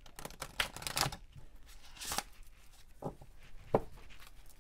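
A deck of large oracle cards being hand-shuffled: irregular slaps, snaps and brief rustles of the card stock, with one sharper snap about three and a half seconds in.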